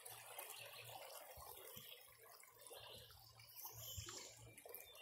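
Faint trickling and dripping of river water around a canoe being paddled, with a few soft knocks.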